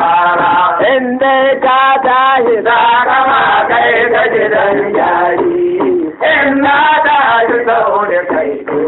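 A man singing a traditional Hausa song in long, wavering phrases, with a brief break about six seconds in.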